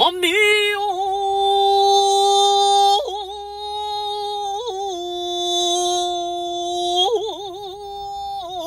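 A solo male voice chanting shigin, a Japanese recitation of a classical Chinese poem, sustaining long, high, steady notes with little vibrato. The pitch steps down about three and five seconds in, with short wavering turns at each change, and climbs back near the end.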